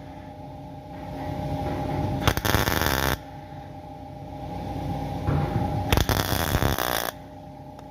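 CO2 (MIG) welding arc crackling in two short bursts of about a second each, with a steady hum between them.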